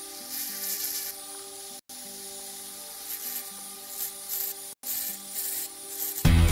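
Rotary tool on a flexible shaft running with a steady whine while its diamond burr grinds into a wooden saw handle in short, hissy carving strokes. Loud music comes in near the end.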